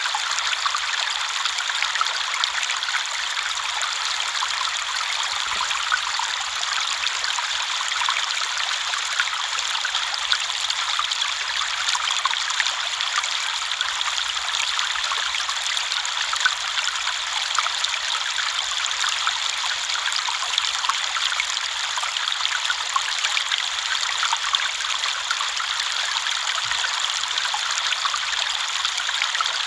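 Shallow river flowing steadily, with a constant rush of water and small splashes and trickles throughout.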